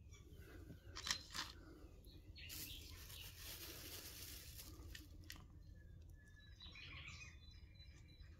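Faint outdoor ambience with small birds chirping. A couple of sharp clicks come about a second in, and a hissing rustle runs for a couple of seconds in the middle.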